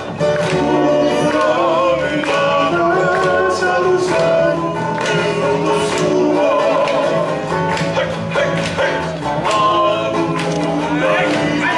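Polynesian song with singing over instrumental accompaniment, playing steadily throughout.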